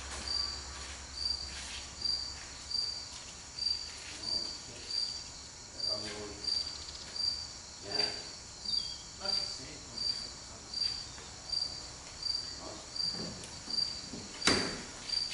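A cricket chirping steadily, a short high chirp repeating a bit more than once a second. Faint knocks sound now and then, and a single sharp knock near the end is the loudest sound.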